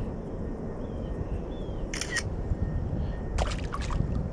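A few short, sharp clicks over steady outdoor background noise: a pair about two seconds in and a quick cluster of clicks near the end.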